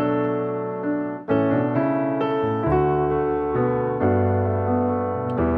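Background music: a soft piano melody with chords, new notes struck about once a second.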